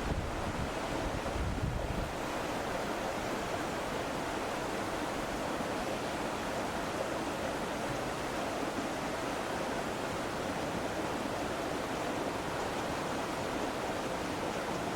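Steady rush of a small mountain stream spilling over a little waterfall. Wind buffets the microphone with a low rumble for the first two seconds.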